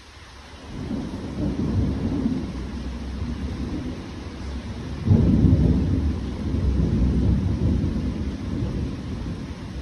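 Thunder rumbling: a deep roll that builds about a second in and swells louder about five seconds in, during a spring rain shower.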